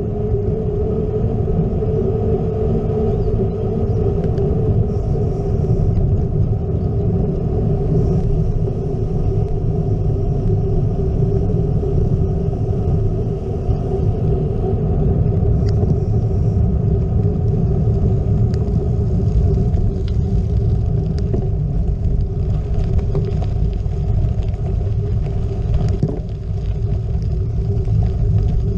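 Steady low rumble of wind and road vibration on a GoPro riding along on a moving gravel bike, with a steady hum running through it.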